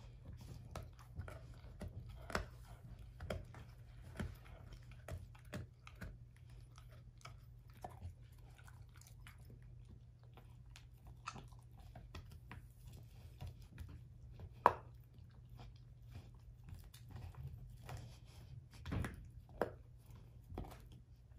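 A German shorthaired pointer chewing an air-dried, hair-on whole pig foot: irregular crunches and cracks of the dried skin and bone, with one sharp, loud crack about fifteen seconds in.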